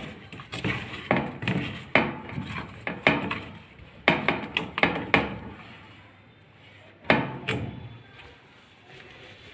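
A hand mixing food of torn chapatis in a stainless steel bowl: a quick run of sharp knocks against the bowl for about five seconds, then a pause and two more knocks about seven seconds in.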